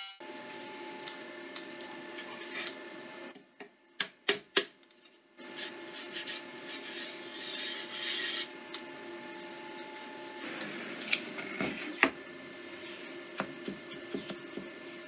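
Hands brushing and rubbing sawdust off a freshly machine-flattened mahogany board. Scattered light knocks and clicks come as the wood is handled, over a steady hum. The brushing is loudest a little past halfway.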